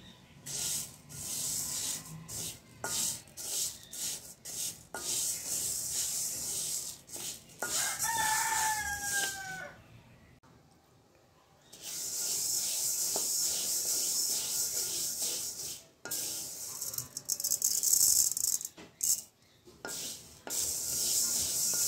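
A wooden spatula scrapes and stirs split urad dal dry-roasting in a metal pan, a dry rustling scrape that comes in bouts and stops for about two seconds midway. A rooster crows once, about eight seconds in, its call falling in pitch.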